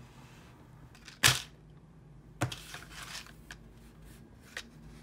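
Bubble wrap and plastic packaging being handled and unwrapped: a sharp, loud crackle about a second in, then a spell of crinkling and rustling with a few light clicks.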